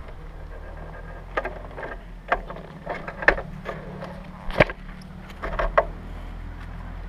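Motorcycle engine running low and steady at idle, with scattered irregular sharp clicks and taps, the loudest about halfway through.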